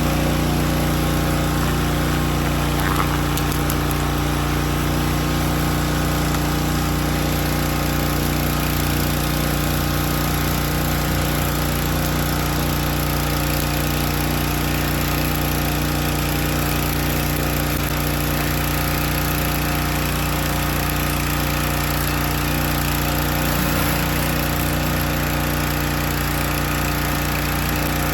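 Gas engine of a Predator 3200 PSI pressure washer running steadily, with the hiss of water from a surface cleaner spraying onto concrete.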